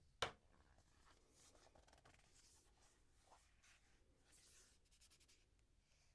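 Faint close-up handling sounds: a sharp click about a quarter second in, then soft rubbing and scratching, with a few quick ticks near the end.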